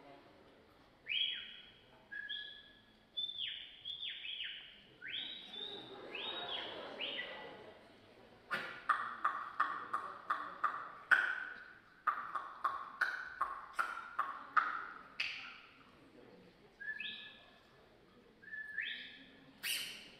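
Bird-like whistled chirps made by a mime with his mouth: a string of quick whistles that swoop up and down, then a faster run of short squeaky peeps and clicks, about three a second, and a few short paired whistles near the end.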